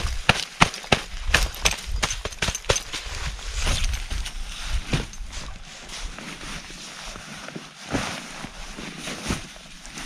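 A snow-covered nylon tent being handled and shaken: fabric rustling and snow sprayed off it. A quick run of sharp clicks and knocks comes in the first three seconds, then scattered softer rustling.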